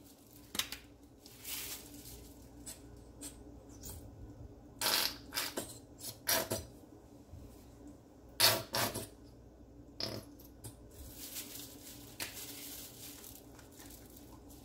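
Plastic squeeze bottle of French's yellow mustard squeezed over raw chicken in a plastic bowl: several short squirts at uneven intervals.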